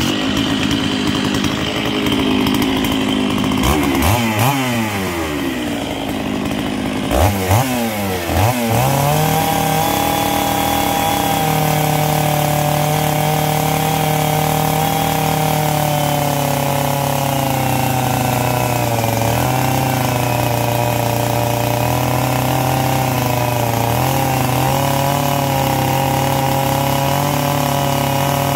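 Stihl MS 660 two-stroke chainsaw running. It is revved up and down several times a few seconds in, then held at high revs while cutting into a paulownia log, its pitch dipping slightly now and then under load.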